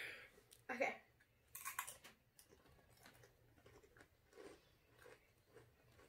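Faint crunching and chewing of a spicy red chip, with a short voice sound about a second in.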